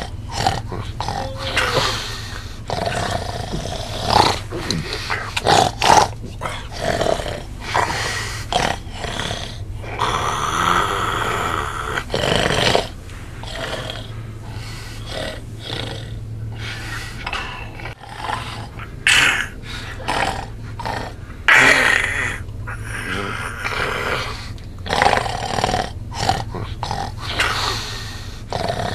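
A man snoring loudly in his sleep, the snores coming irregularly, over a steady low hum.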